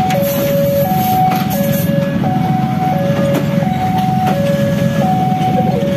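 Two-tone electronic level-crossing warning alarm going back and forth between a higher and a lower note, each held under a second. Under it runs the steady rumble of a passing passenger train's coaches, with occasional wheel clicks over rail joints.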